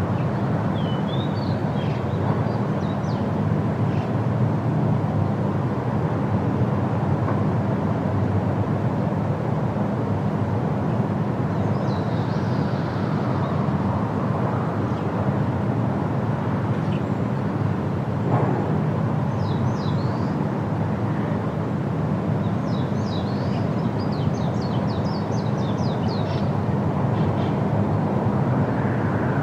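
Rhine Falls waterfall rushing with a steady, unbroken roar, with small birds chirping above it now and then.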